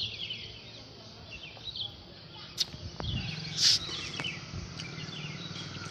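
Small birds chirping in short repeated calls, with a brief rustle about three and a half seconds in and a low steady hum coming in around three seconds.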